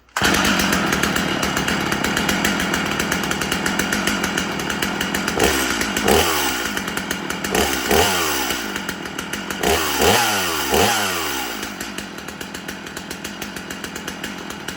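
Two-stroke chainsaw engine running, revved up and dropping back several times in the middle, then settling back to a steady run.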